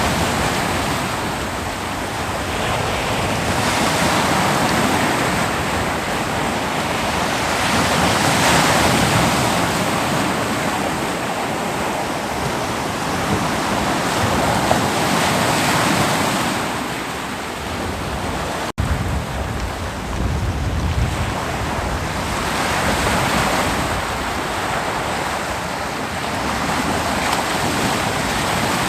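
Ocean surf breaking and washing on a beach, a continuous rush of water that swells and eases every few seconds as waves come in. The sound cuts out for an instant about two-thirds through.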